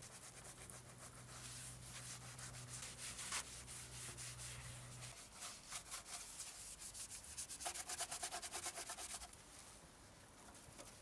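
A wet sponge rubbing and scrubbing the dirty painted frame and body panels of a Simson SR50 moped in repeated strokes, with a fast run of quick back-and-forth strokes about eight seconds in.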